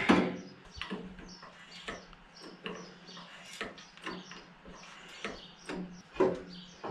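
Scattered clicks and light knocks from working a hydraulic pipe bender set against a Land Cruiser chassis rail, some about a second apart, over a faint steady hum.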